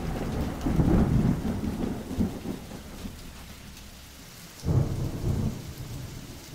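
Thunderstorm sound effect: rain with low rolling thunder. One roll fades out over the first few seconds, and a second breaks in suddenly about two-thirds of the way through.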